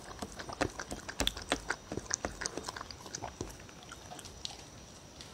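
A dog eating cereal in pet milk from a bowl, lapping and chewing: quick clicks and crunches, several a second, that thin out and stop after about three and a half seconds.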